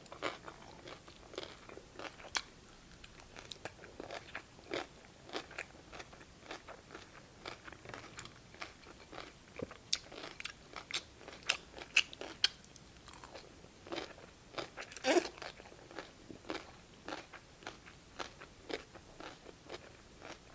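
Close-up crunching and chewing of crisp cucumber slices from cold cucumber soup: irregular crisp crunches as they are bitten and chewed, with a louder, drawn-out noise about fifteen seconds in.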